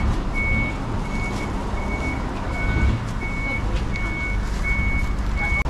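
Vehicle reversing alarm beeping: one high tone repeated evenly about one and a half times a second, over a low engine rumble. The beeping stops near the end.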